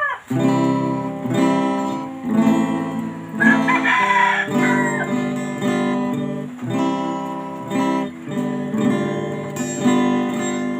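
Acoustic guitar strumming chords, the instrumental intro of a song, with a rooster crowing once about four seconds in.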